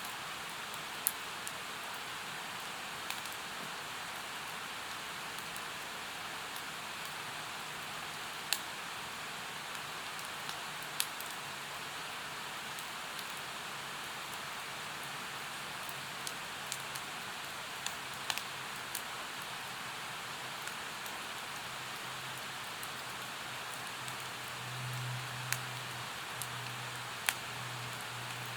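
Steady rushing of a mountain stream with a wood campfire crackling over it, giving a dozen or so sharp, scattered pops. A faint low hum comes in partway through and is strongest near the end.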